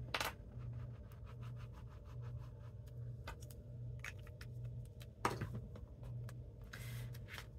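Tip of a liquid glue bottle scratching across cardstock in short strokes as glue is drawn on, then the card panel being picked up and handled with small paper rustles and taps about five seconds in.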